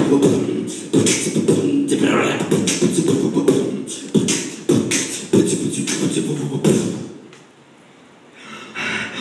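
Loud rhythmic stage performance with a percussive beat. It drops out for a moment near the end, then starts again.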